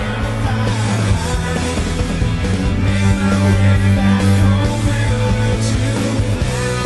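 NHL goal song: loud rock music with singing, the kind played over the arena speakers after a goal horn.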